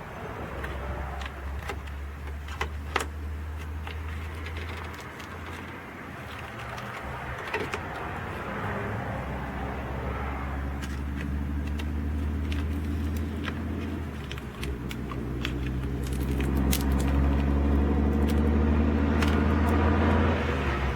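A low, steady engine hum that grows louder about fifteen seconds in, with scattered light clicks and rattles over it.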